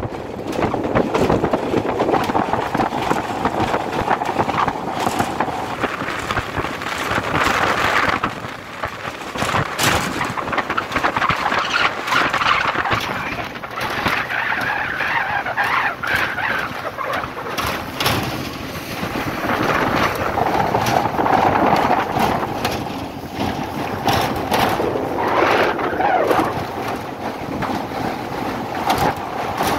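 A moving vehicle: a continuous rushing noise with no clear engine note, its level rising and falling.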